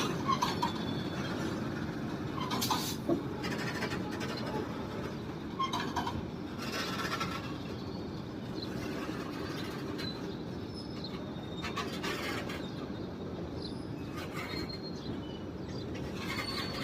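A loaded freight train of covered BCN wagons moving off behind a WAG9 electric locomotive. A steady low rumble runs throughout, broken by short, sharp squeals and clanks about every few seconds.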